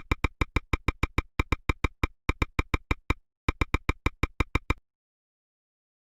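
Quick series of identical short electronic blips, about six a second, in three runs with brief pauses between them, stopping abruptly near five seconds in.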